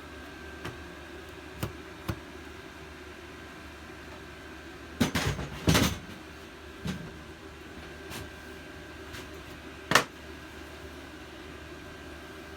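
Scattered knocks and clunks of metal parts being handled, loudest in a cluster of several knocks about five to six seconds in and a sharp single knock about ten seconds in. Under them is the steady hum of a diesel space heater running.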